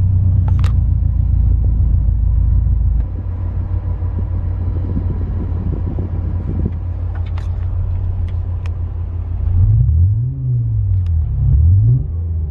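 Synthetic engine sound from Renault's R-Sound Effect app played through the Clio's speakers: a steady low drone that drops in level about three seconds in. From about ten seconds in it rises and falls in pitch like short revs, with a few light clicks along the way.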